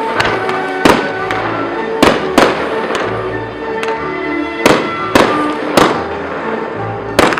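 Fireworks shells bursting with sharp bangs about once a second, over music with a steady bass line.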